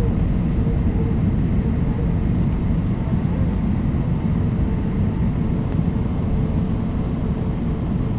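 Cabin noise of a jet airliner in flight: a steady, even rumble of engines and airflow, with a faint steady hum.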